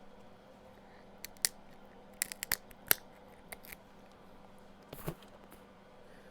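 Shears snipping and cracking through the hard shells of shellfish legs: a series of sharp, irregular clicks and cracks in small clusters, the loudest about three seconds in.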